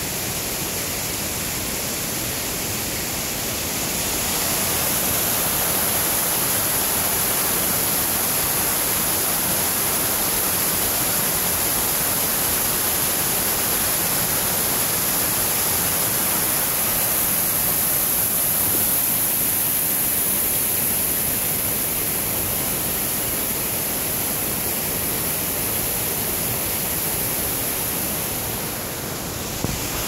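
Small forest waterfall cascading over rocks: a steady rush of water. It grows louder about four seconds in and eases slightly near the end.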